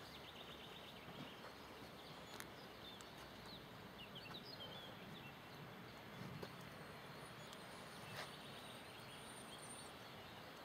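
Quiet outdoor background noise with a few faint bird chirps, and now and then a faint click.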